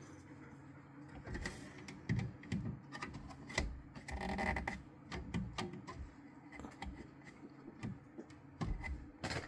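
Irregular clicks and clatters of hard plastic 3D-printed pieces being handled and set down, with a short pitched sound about four seconds in.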